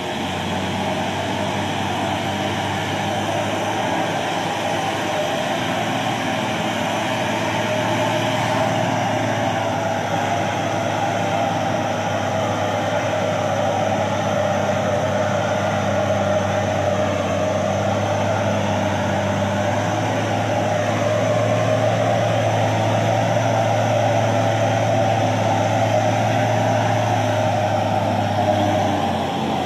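Heavy diesel engines of an excavator and a timber truck running steadily under load as the excavator pushes the truck, a continuous drone that grows a little louder in the second half.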